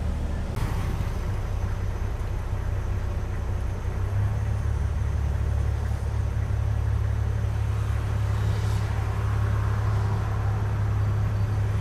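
Low, steady rumble of a car's engine and running gear heard from inside the cabin, growing a little louder about four seconds in.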